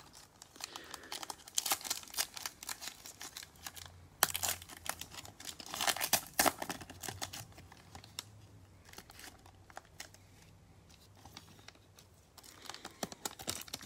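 Plastic wrapper of a Donruss football card pack crinkling and tearing as it is ripped open, in irregular crackling bursts that are loudest in the first half. Softer rustling and light clicks of the cards being slid out of the pack follow near the end.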